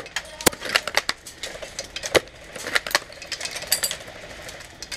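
Scattered sharp clicks and snaps, several a second at times, the loudest about half a second in and again near two seconds in: airsoft guns firing and BBs striking hard surfaces.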